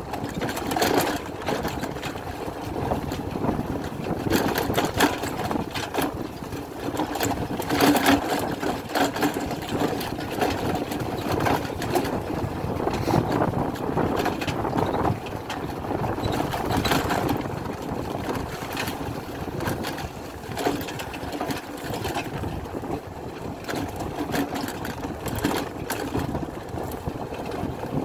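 1967 Pannonia P10's 250 cc two-stroke engine running under way, its revs rising and falling every few seconds.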